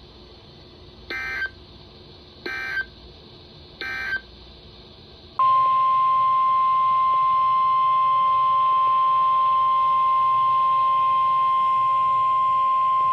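NOAA Weather Radio Emergency Alert System signals: three short warbling SAME data bursts about a second and a half apart, the end-of-message code closing one warning. About five seconds in, a loud steady single tone near 1 kHz starts and holds: the weather radio's 1050 Hz warning alarm tone that introduces the next warning.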